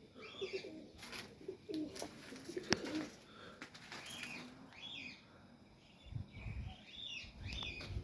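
Pigeons cooing in a loft, mixed with higher chirping calls and a few sharp clicks. About six seconds in comes a short flurry of low thumps like wings flapping.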